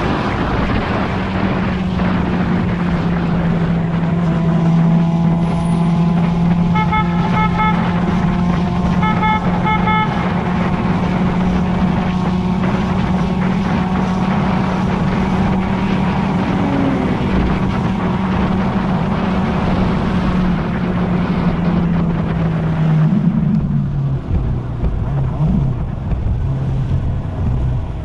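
Motorcycle engine running at a steady cruising speed with wind rush. About seven and nine seconds in, two quick series of short beeps sound. Near the end the engine note drops and wavers as the bike slows into traffic.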